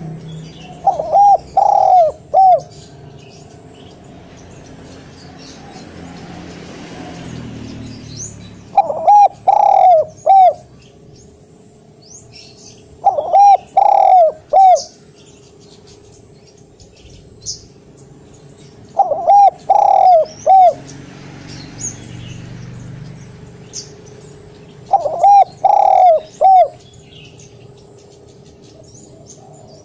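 Spotted dove cooing: five loud phrases of three to four coos each, several seconds apart. Small birds chirp faintly in the background.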